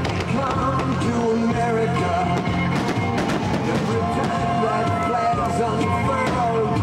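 Background music: a rock song with a steady drum beat.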